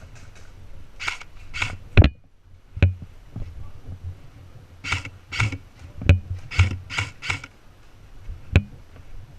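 Short rustling scuffs in runs of two or three, about half a second apart, with several sharp clicks or knocks between them.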